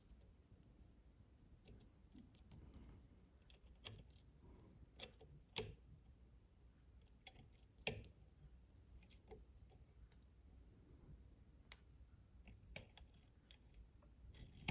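Faint, scattered clicks of small metal parts, the tension discs and springs of a sewing machine's upper thread tension assembly, being handled and fitted back into place.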